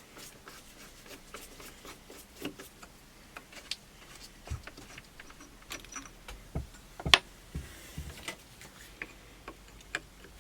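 Irregular small clicks, taps and light knocks of metal parts and tools being handled while a Vetterli rifle's lower is taken apart, with one sharper knock about seven seconds in.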